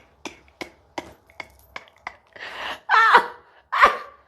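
A quick run of about six sharp cracks, typical of joints popping during a chiropractic adjustment, followed by the patient's breathy exhale and two loud groaning "oh"s that fall in pitch.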